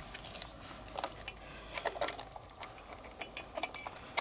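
Screwdriver working the gear-oil drain and vent screws on an outboard motor's lower gear case: irregular small clicks and metallic clinks, several a second.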